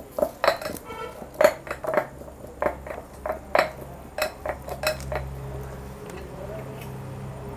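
Hands kneading finger-millet flour and water in a steel plate: a rapid, uneven run of clinks and knocks as the hand and bangles strike and scrape the metal. A low steady hum comes in about five seconds in as the clinking thins out.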